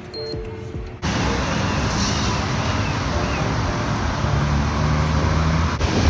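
Riding a scooter through city traffic: a steady low hum from the scooter under wind noise on the microphone and the rush of passing road traffic, starting suddenly about a second in.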